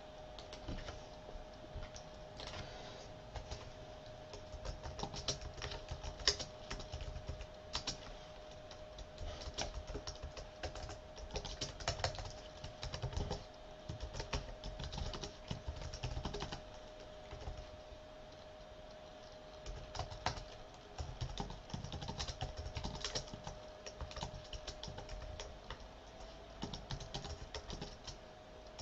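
Typing on a computer keyboard: runs of quick key clicks broken by short pauses, over a faint steady hum.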